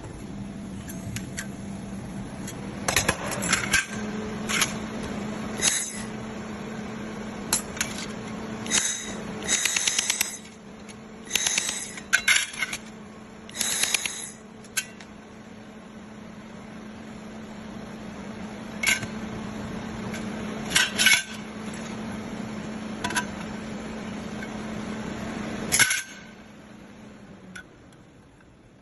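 Handheld pulse laser welder firing: scattered sharp snaps and short bursts of rapid ticking, the longest about a second, over a steady low hum from the machine that stops near the end.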